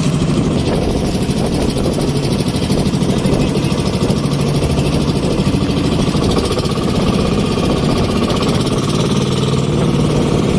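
Small boat engine running steadily at an even speed, a continuous hum.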